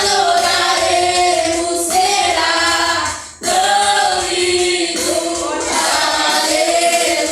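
A vocal group singing a worship song in harmony, several voices holding and gliding through long notes, with a short break about halfway through.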